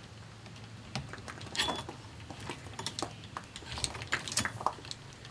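Scattered light clicks, taps and scrapes of metal loading gear being handled while a muzzleloading rifle is loaded.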